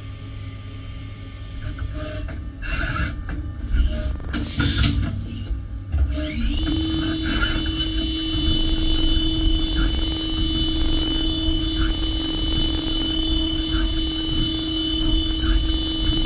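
CNC machining centre's spindle spinning up about six seconds in, its whine rising quickly and then holding steady, over a low machine rumble. Before that come a few short hissing bursts.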